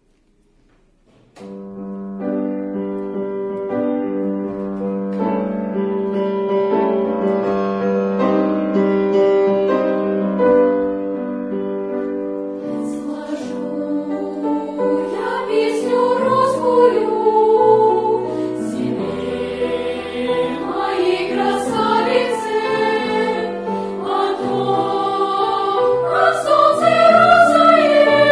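Children's choir singing, entering about a second in with long held chords, then singing words from about halfway, the volume building toward the end.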